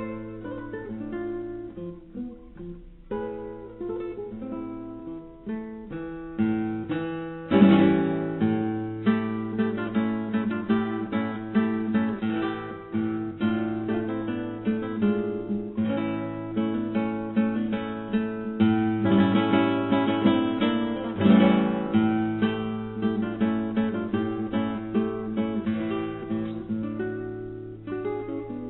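Acoustic guitar music, quick plucked and strummed notes over a steady low bass note, growing fuller about a third of the way in.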